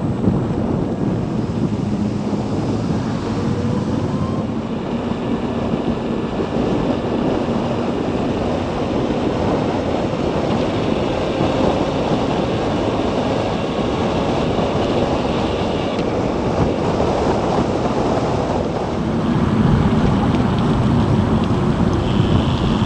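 Wind rushing over the bike-mounted microphone and road noise from a Zero DSR electric motorcycle riding at speed. The noise is steady and dense, with a faint high whine in the middle, and it grows louder near the end.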